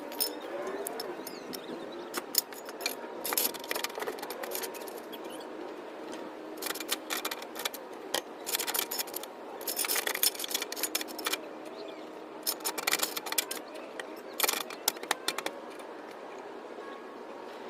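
Hand tools and metal parts clinking, rattling and scraping in short bursts of about a second, with pauses between, while work is done on a car's wheel well and underside.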